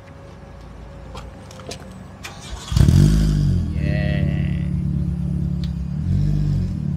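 Proton Gen2 MME's R3 aftermarket exhaust heard right at the tailpipe: about three seconds in the engine catches with a rev that rises and falls, then idles steadily, with a second short rev near the end.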